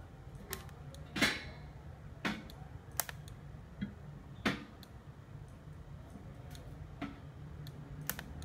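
Scattered sharp clicks and taps at irregular intervals, about eight in all, over a steady low hum.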